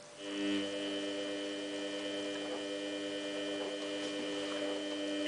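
Samsung WF8804RPA washing machine giving a steady electrical hum of several held tones, starting a moment in, while it fails to let water into the drum in service mode.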